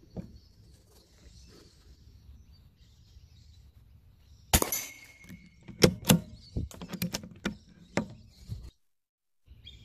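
A single shot from a CZ452 .22LR bolt-action rifle firing a Winchester 42-grain subsonic round, about halfway through. About a second later comes a run of sharp metallic clicks and clacks, typical of the bolt being worked to eject the spent case and chamber the next round.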